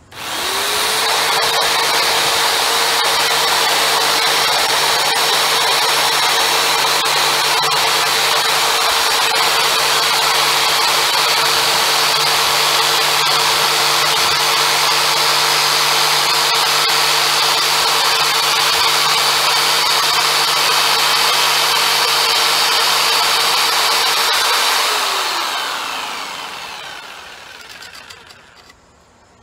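Corded jigsaw with a scroll blade cutting through half-inch MDF: the motor whine rises sharply as it starts, runs at a steady speed with the rasp of the blade, then winds down about 25 seconds in.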